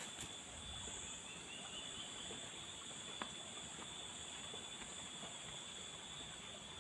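Forest insects calling steadily in several high, unbroken tones over a faint background hiss, with a single small click about three seconds in.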